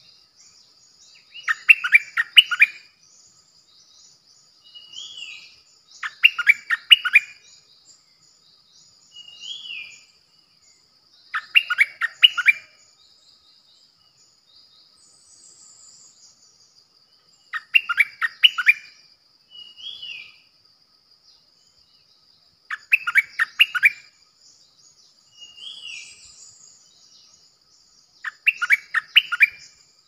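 Stripe-throated bulbul used as a caged decoy, singing six short bursts of rapid bubbly notes, one about every five to six seconds. Quieter single rising notes come between the bursts.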